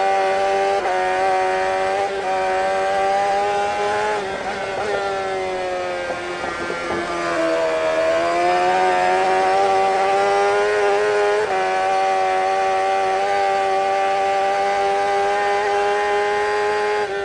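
Engine held at steady high revs, its pitch sagging briefly about seven seconds in and then climbing back.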